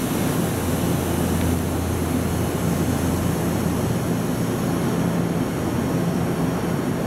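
Steady rumbling noise with a low hum, the running sound of an electric train.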